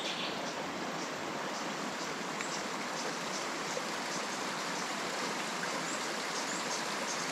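Steady rushing of a jungle river flowing over stones, with faint short high-pitched chirps scattered through it.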